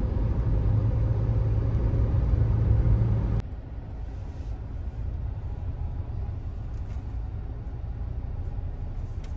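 Steady low rumble of road and engine noise inside a moving car's cabin. About a third of the way in it cuts abruptly to a quieter rumble as the car moves slowly in traffic.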